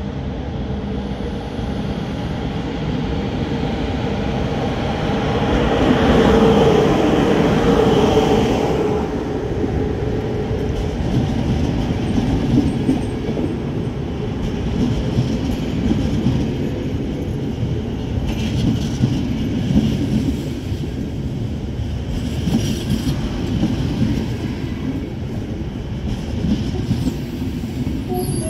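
Romanian class 060-EA electric locomotive with its passenger train arriving at a station. It is loudest about six to nine seconds in as the locomotive comes by, with a steady hum over the rumble. After that the coaches roll past with an irregular clatter of wheels over the rail joints.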